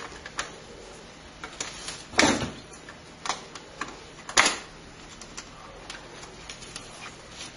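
Scattered light clicks and taps of computer parts, screws and a screwdriver being handled, with two louder knocks about two seconds and four and a half seconds in.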